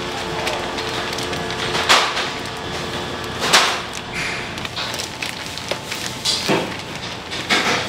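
Knife knocking and scraping on a wooden cutting board: a few separate sharp knocks with short scrapes between, the loudest about two and three and a half seconds in, then a quicker cluster near the end.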